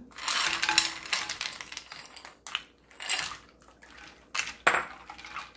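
Ice cubes tipped into a glass bowl of cold soup, clattering together for about a second and a half, then a few short clinks and knocks as a wooden spoon stirs the ice against the glass.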